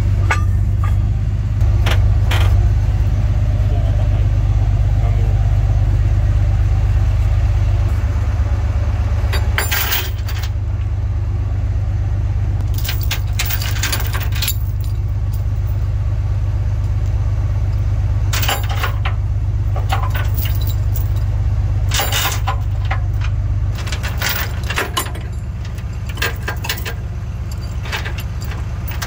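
A truck engine idling steadily, with tow chains repeatedly rattling and clanking against the semi tractor's steel frame and fifth wheel as they are handled.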